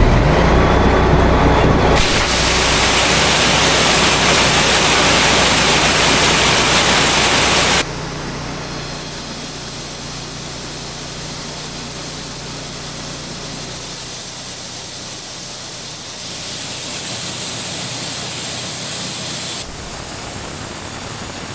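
Grain vacuum running: a loud, steady rush of air and corn through the machine over a low engine hum. The sound jumps abruptly about 2 seconds in and again about 8 seconds in, and is quieter after that.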